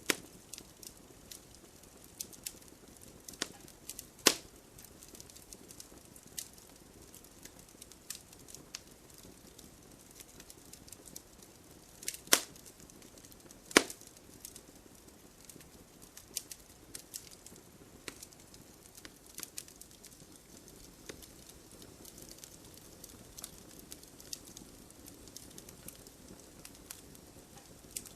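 Burning firewood crackling: a soft steady hiss of the fire with scattered sharp pops and snaps, a few louder ones about four seconds in and twice around twelve to fourteen seconds in.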